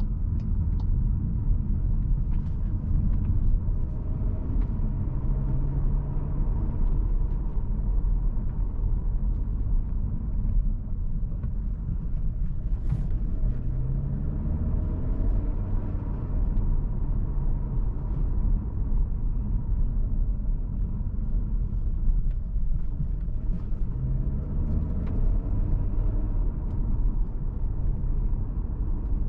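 Cupra Formentor VZ5's 2.5 TFSI turbocharged five-cylinder engine and road rumble while driving, with the engine note rising in pitch three times as the car accelerates.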